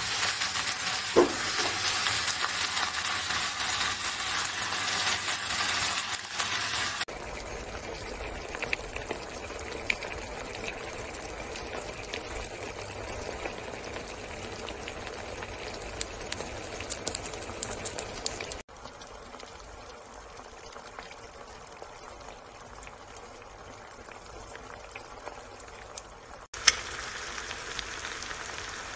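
Eggs frying in a pan, a steady sizzle with scattered pops and crackles. It is loud and bright for about the first seven seconds, then drops to a quieter sizzle, with further sudden changes in level near 18 and 26 seconds. There is a short sharp sound about a second in.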